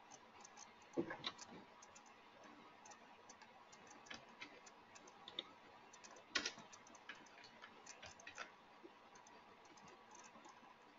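Near silence with faint, scattered computer mouse clicks, the clearest about a second in and about six seconds in.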